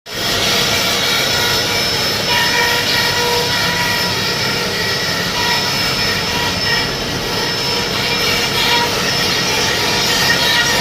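CNC router running and cutting wood: a steady high spindle whine over the noise of the bit in the wood, its pitches shifting slightly as the cut goes on.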